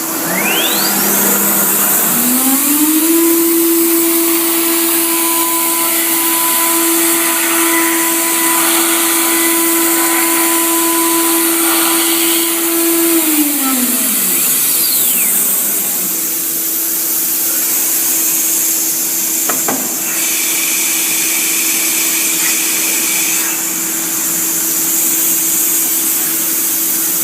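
Woodworking CNC router running: its spindle's whine climbs about two seconds in, holds steady, then winds down around thirteen to fourteen seconds. Under it runs a constant loud hiss of machine noise, with a fainter steady hum continuing after the spin-down and a single click near the twentieth second.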